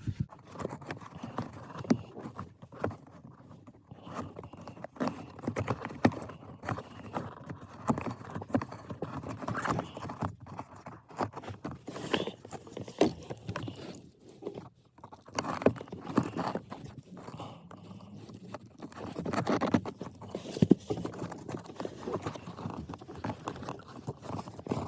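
Irregular clicking, knocking and scraping of plastic as a cabin air filter is fished out of its housing in a car's passenger footwell.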